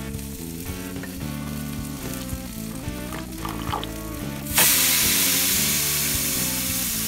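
Background music with steady notes throughout. About four and a half seconds in, a loud sizzle starts suddenly and slowly fades, from meat juices hitting the hot cast iron skillet or smoker.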